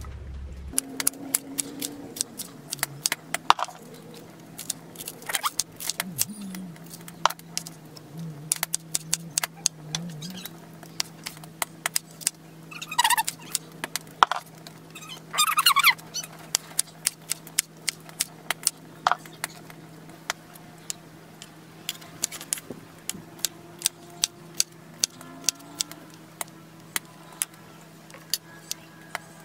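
Kitchen knife chopping okra and long beans on a wooden cutting board: sharp knocks of the blade on the board, becoming a steady run of about one or two a second in the second half. Two short high-pitched sounds stand out around the middle, over a steady low hum.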